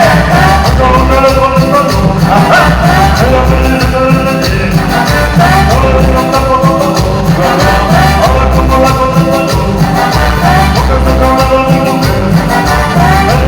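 A band playing Latin dance music at full volume: a heavy, steady bass under gliding melodic lines.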